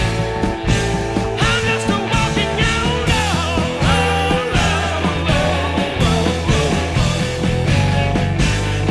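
Rock music with a steady beat and a wavering melody line over it.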